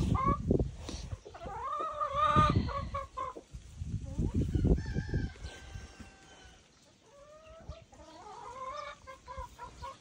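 Chickens clucking and calling, with what sounds like a rooster crowing once. There are a few dull thumps in the first half.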